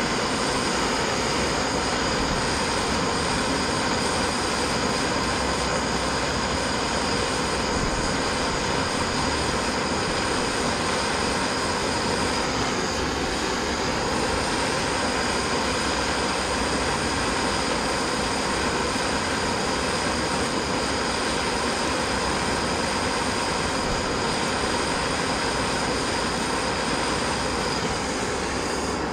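Steady roar of a handheld gas torch flame heating the pinion yoke and nut of a Dana 25/27 front axle, to free a part that won't budge.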